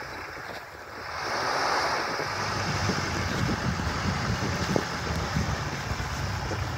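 Wind buffeting the microphone, growing louder about a second in, over the low running of a jeep engine driving through deep snow.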